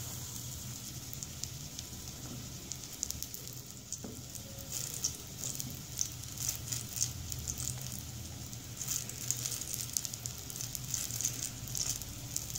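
Oil sizzling and crackling in a nonstick pan as batter-coated bread pakoras shallow-fry, with quick irregular pops that grow busier after about four seconds.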